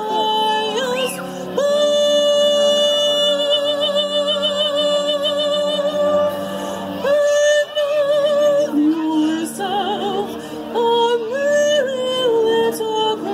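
A woman singing in a trained, operatic style with wide vibrato, accompanied live by a concert band. She holds one long note from about two seconds in until near the middle, then a second held note, before moving into shorter phrases.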